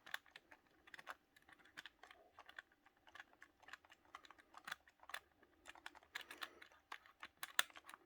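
Quiet, irregular plastic clicks and taps, several a second, from a keycap on a Razer Huntsman optical-switch keyboard being rocked side to side on its switch stem.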